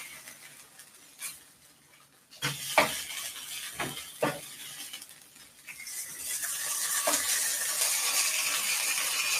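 Utensils knock and clink against a pan a few times, then about halfway in a steady sizzle starts: beef short rib (galbi) frying in the pan.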